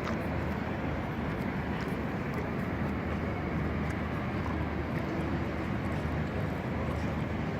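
Steady low rumble of outdoor city background noise, with a few faint clicks.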